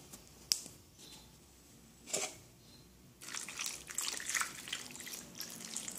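Water poured from a cup into a small saucepan of diced pineapple, splashing over the fruit pieces from a little past halfway. A light knock comes about two seconds in, before the pour.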